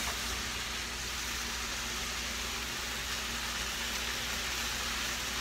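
Cut vegetables and pork sizzling steadily in a frying pan as they are stir-fried, over the even whir of a kitchen exhaust fan.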